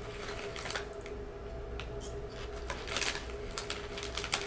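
Someone eating crunchy chips from a plastic snack bag: scattered sharp crunches and bag crinkles over a steady low hum.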